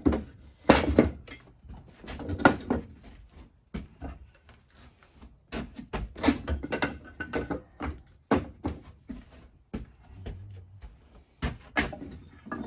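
Irregular knocks and clunks of parts being handled and set in place while the height of an Alaska chainsaw mill is adjusted.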